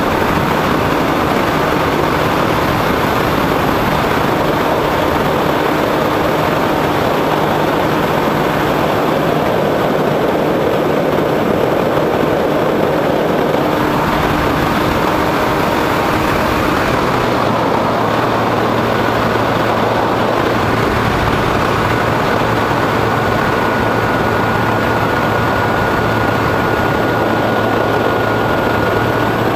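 Foam RC airplane's motor and propeller running steadily under heavy wind rush, heard through a camera mounted on the plane. About halfway through, the motor's hum drops to a lower pitch.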